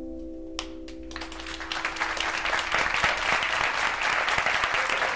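The last plucked-string chord of the music rings out and fades. About a second in, audience applause begins and swells into steady clapping.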